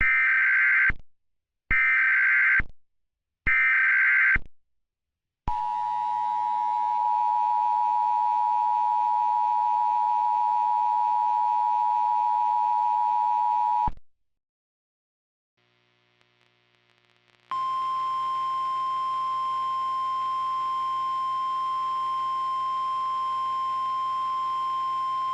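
Emergency Alert System tones: three short bursts of buzzing digital data (the SAME header), then the two-tone EAS attention signal held for about eight seconds. After a short gap with faint hiss, a single steady alert tone sounds for about nine seconds, in the style of the NOAA Weather Radio alert.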